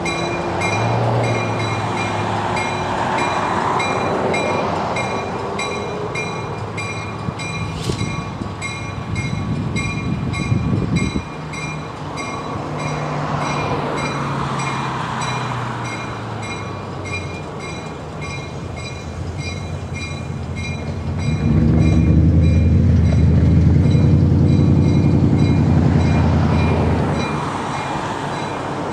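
Baldwin-Lima-Hamilton RS4TC diesel locomotive running as it pulls passenger cars slowly along the track. Its engine grows louder and fuller for several seconds from a little past the middle, as it throttles up.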